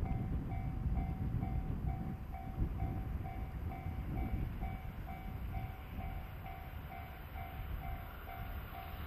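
Railway level-crossing warning bell ringing steadily, about two rings a second, signalling an approaching train, over a low rumbling noise that eases off slightly.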